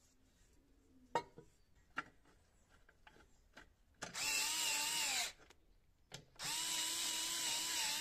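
Cordless drill with a socket bit, driving a bolt into a mower engine's cover plate. It runs in two steady-pitched bursts, a short one about halfway in and a longer one near the end, and each winds down in pitch as the trigger is released. A couple of sharp knocks come before them as the parts are handled.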